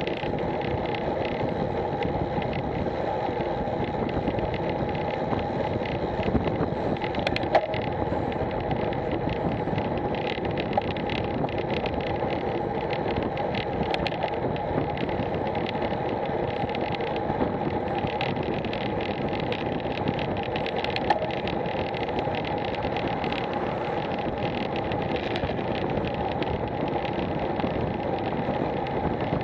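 Wind rushing over the microphone of a Garmin VIRB action camera on a road bicycle at about 20 to 28 mph, mixed with the hum of tyres on tarmac. It runs steadily, with a few sharp ticks here and there.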